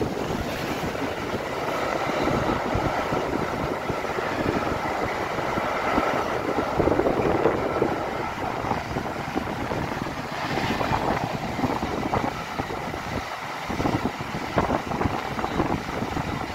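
Intermodal freight train's container flat wagons, mostly empty, rolling past: a steady rumble of wheels on rails with irregular clanks and clicks.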